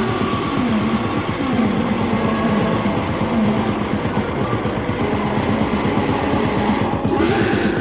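Harsh electronic noise music: a dense, loud wall of distorted static over a very fast low pulse, with warbling pitched tones sliding up and down through it.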